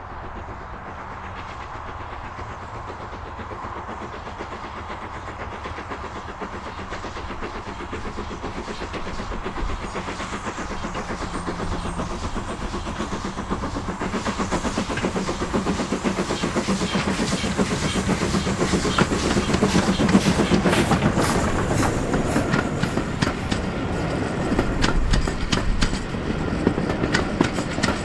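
BR Standard Class 2 steam locomotive hauling a train of coaches, its sound growing steadily louder as it approaches. From about twenty seconds in it is close by, and the wheels click sharply over the rail joints as the engine and coaches pass.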